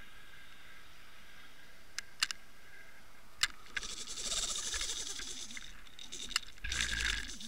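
A few sharp clicks, then rustling and scraping close to the microphone, with a low bump near the end: handling noise against the camera.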